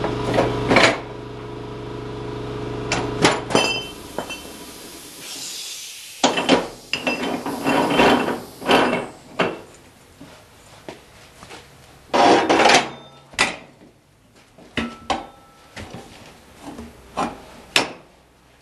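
Tire-changing work: metal tools and the tire changer knocking and clanking in a series of separate strikes while a tire is worked off its rim. A steady hum runs under the first few seconds and stops about four seconds in.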